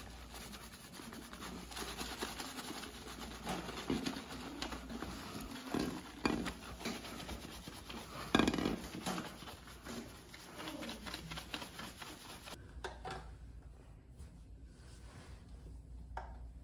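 Fingers scrubbing shampoo-lathered hair and scalp at a shampoo sink, a close, irregular rubbing and squishing. It stops about twelve seconds in, giving way to a quieter stretch.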